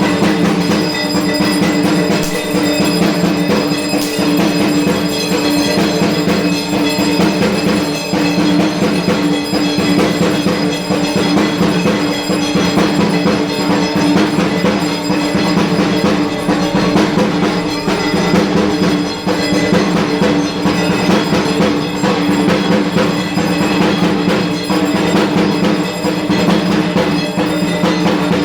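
Dhak, the large Bengali barrel drum, beaten with sticks in a fast, unbroken rhythm, over a steady ringing tone.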